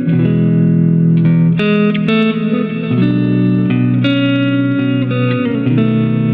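Slow, calm instrumental music: held notes and chords that change every second or so.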